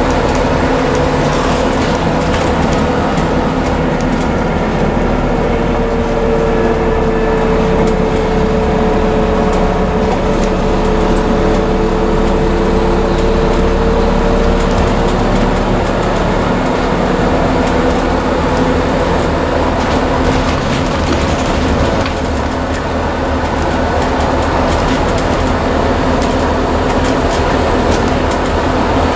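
Scania N230UD double-decker bus under way, heard from inside on the upper deck: a steady drone of its five-cylinder diesel engine and drivetrain with a whine that holds for several seconds and slowly falls in pitch, over scattered interior rattles.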